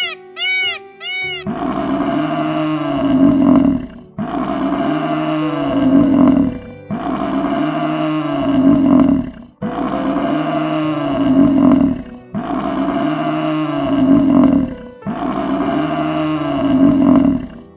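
A peacock gives a few short, arched calls over about the first second and a half. Then a water buffalo's deep bellow follows, repeated six times at even spacing about every two and a half seconds, each one alike as if looped.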